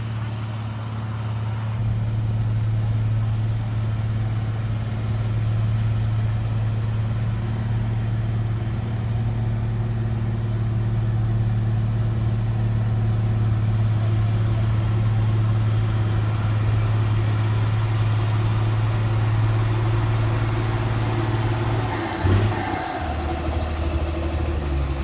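Engine of a heavy road-construction machine running steadily at constant speed, a strong low hum. Near the end there is a brief clatter and hiss, and the engine settles to a lower note.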